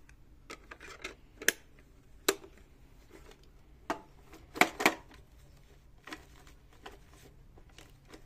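A battery-operated plastic Santa toy being handled and set down on a tile floor: scattered sharp plastic clicks and knocks, the loudest a quick pair near the middle.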